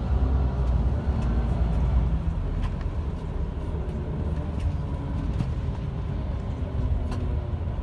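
Airport apron shuttle bus driving, heard from inside: a steady low engine and road rumble.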